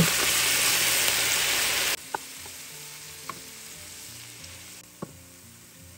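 A splash of water hitting a hot skillet of sliced mushrooms sizzles loudly, then cuts off abruptly about two seconds in. After that the pan sizzles faintly, with a few light taps of a wooden spoon stirring the mushrooms.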